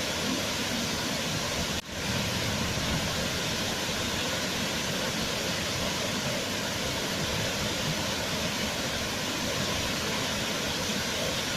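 Waterfall, a steady rush of falling water, with a brief dip in level a little under two seconds in.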